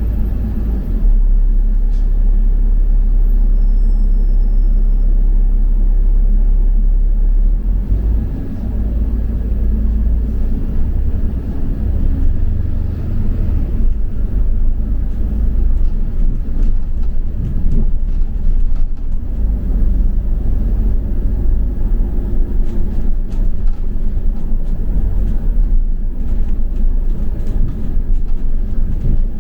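Double-decker bus on the move, heard from on board: a steady low engine and road rumble, with light rattles and ticks in the second half.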